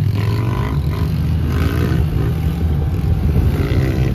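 Side-by-side UTV engine running steadily under way, heard from inside the cab, with the dirt bikes' engines riding ahead.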